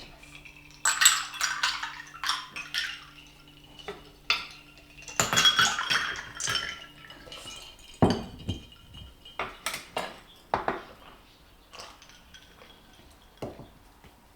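Tableware clinking: chopsticks and spoons tapping and scraping against bowls and plates at a meal, in several clusters of clinks with quieter gaps between.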